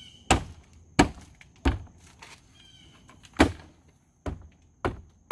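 Door trim panel of a 2011 Ford Fusion being smacked by hand so its plastic retaining clips pop into the door: about seven sharp thumps at uneven spacing.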